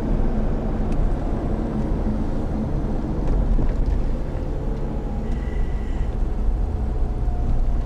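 Steady low rumble of engine and road noise heard from inside a moving vehicle on a city road.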